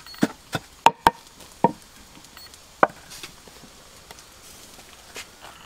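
Wooden pestle knocking in a mortar: about six sharp knocks in the first three seconds, then only faint handling sounds as shredded green mango is tipped in and mixed by hand.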